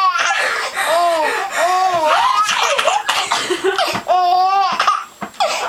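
A young child laughing hard in repeated high-pitched peals with short gasps between them.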